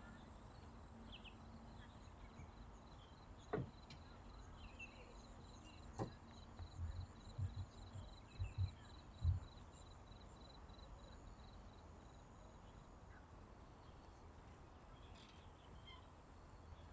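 Quiet park ambience: scattered high bird chirps and a quickly repeated high note, about three or four a second, over a steady high hiss. A few soft low thumps come about halfway through, along with two sharp clicks.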